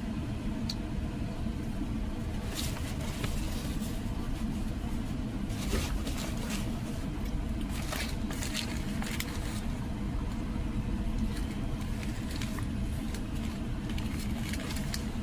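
Steady low rumble of a car interior, with scattered short clicks and crackles, most of them clustered in the middle.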